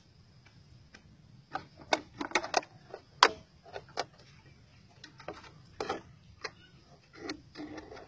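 Irregular sharp clicks and taps of a clear plastic container and small sticks being handled while a bird trap is set on the ground.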